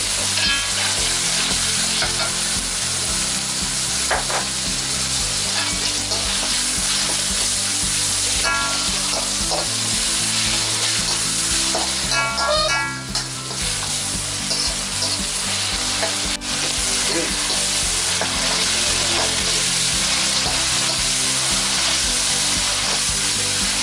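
Diced chicken, garlic and onion sizzling in hot oil in a wok, stirred with a metal spatula that scrapes against the pan a few times.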